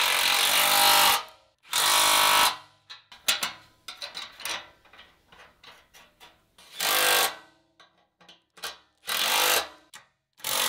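Milwaukee M18 cordless impact wrench hammering exhaust bolts tight in several short runs of about a second each. Between the runs a hand ratchet clicks as the remaining bolts are snugged down.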